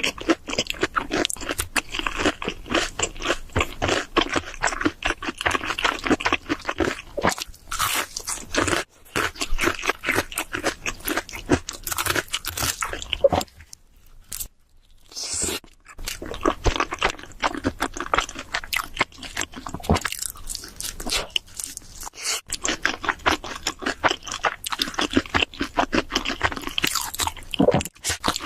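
Close-miked eating of cheese seafood pizza: continual crunching bites and wet chewing, broken by a few brief pauses.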